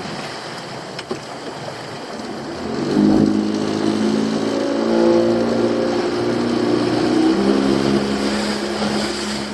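Small fishing boat's engine running; about three seconds in the throttle is opened and the engine runs louder and steadier under way.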